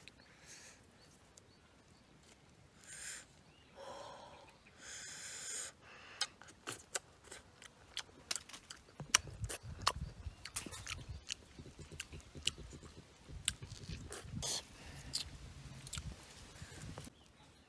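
A person chewing juicy segments of a small orange close up, with many quick wet clicks and smacks. Before that, a few short tearing swishes as the peel is pulled off.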